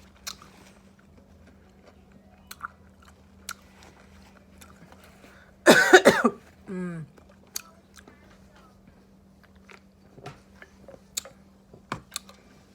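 Chewing and biting food, with wet mouth clicks scattered throughout. About halfway through comes one loud throat sound, a cough or burp-like vocal burst, trailing into a short falling tone.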